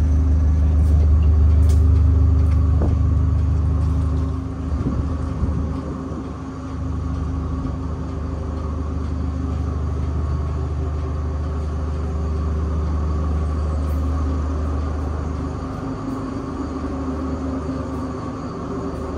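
Passenger ferry's engines running steadily underway: a loud low drone with several steady hums above it, dipping briefly about five seconds in and then settling again.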